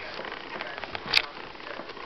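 Puppy claws pattering and scratching on a hard laminate floor: a busy run of small ticks, with one sharper click just over a second in.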